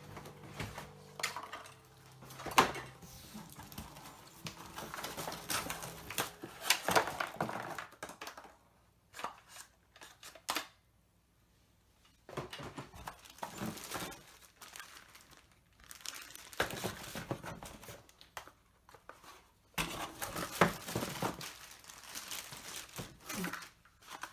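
Cardboard packaging and plastic-bagged parts being handled and pulled out of a box: rustling, crinkling and scraping in irregular bursts with sharp knocks, broken by a few seconds of near silence in the middle.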